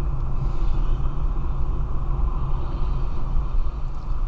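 A car's road and engine noise heard from inside the moving car: a steady, low, even sound with no sudden events.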